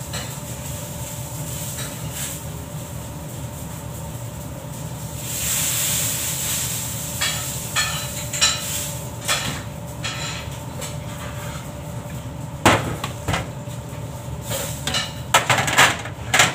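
Aluminium loaf tins clanking and knocking on a stainless steel table as they are set down, in scattered sharp knocks that come more thickly near the end, over a steady machine hum.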